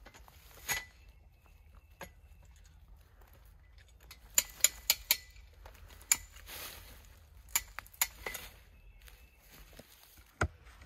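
Metal rigging gear clinking as it is handled: sharp clinks scattered throughout, with a quick run of four or five about four to five seconds in and another pair around eight seconds.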